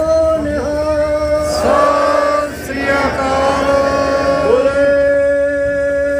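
Sikh kirtan: male voices singing a hymn in a chant-like style over a steady held drone note.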